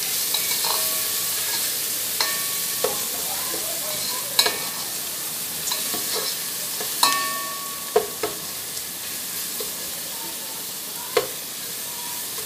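Curry leaves, ginger-garlic and green chillies sizzling in hot oil in a rice cooker's metal inner pot, with a steady hiss. A wooden spatula stirs them, scraping and knocking against the pot at irregular intervals, some knocks making the pot ring briefly.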